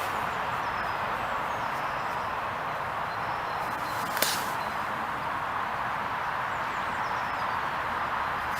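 Steady background hiss with a single sharp click about four seconds in.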